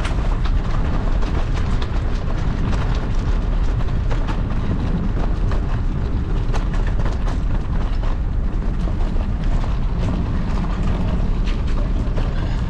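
Wind buffeting the microphone of a camera on a moving bicycle: a steady low rumble. Scattered clicks and rattles come from the bike and its tyres running over a gravel and then wet paved path.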